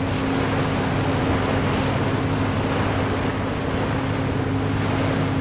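Tour boat's engine running steadily with a low, even hum, under wind noise on the microphone and the wash of water along the hull.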